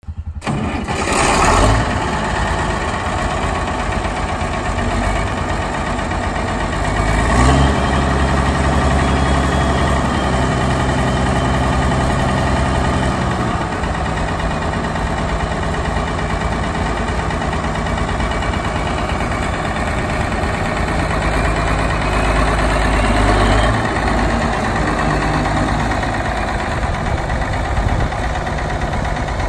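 International Farmall diesel tractor's engine running, with a brief surge about a second and a half in; its low rumble swells twice, from about eight to thirteen seconds in and again around twenty-two seconds in, as the engine speed and load change.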